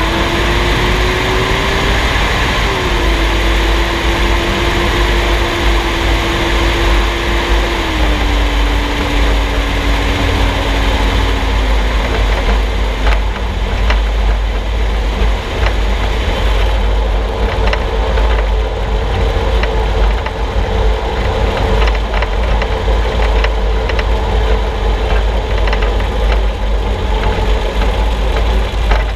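Road and wind noise from under a moving vehicle, heard right at its solid front axle and steering linkage, with a heavy low rumble. A thin whine rises at the start, then drops in pitch in steps before fading. In the second half, short sharp clicks and knocks come through now and then.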